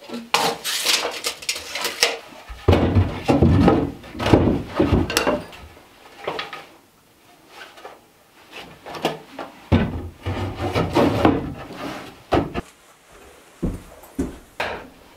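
Wood knocking and scraping on wood as a pine shelf board is handled and fitted into a wooden base cabinet: an irregular run of knocks and clatters, busiest in the first half and again in the second half.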